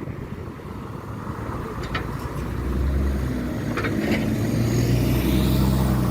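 LiAZ-6213.65 articulated city bus engine heard from inside the cabin, pulling away: the engine note grows louder and climbs from about two and a half seconds in. A few short clicks and rattles are heard about two and four seconds in.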